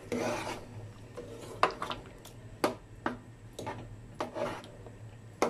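A metal spoon scraping and knocking inside an open tin can of condensed milk to empty it into a pot, with about six sharp clinks.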